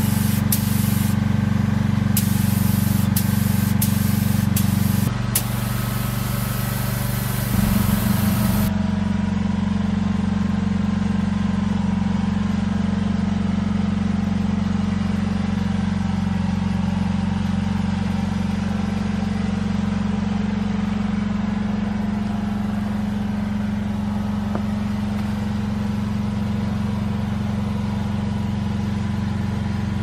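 Air spray gun hissing as paint is sprayed: a few short pulls of the trigger, then one longer spray that stops about nine seconds in. Under it a machine, likely the air compressor feeding the gun, hums steadily, its pitch shifting between about five and eight seconds in.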